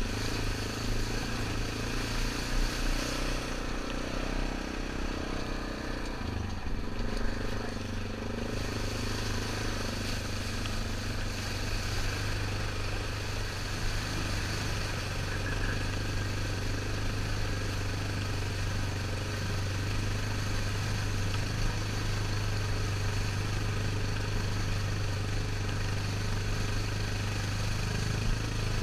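2003 Yamaha Grizzly 660 ATV's single-cylinder engine running while under way, its pitch rising and falling over the first several seconds and then holding steady.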